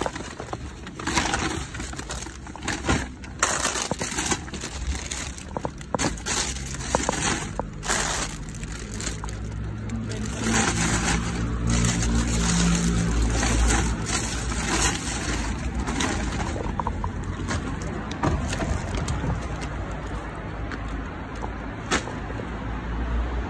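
Plastic rubbish bags and food packaging rustling and crinkling in quick, irregular crackles as gloved hands dig through a street rubbish container. A low engine rumble of a passing vehicle rises and fades about halfway through.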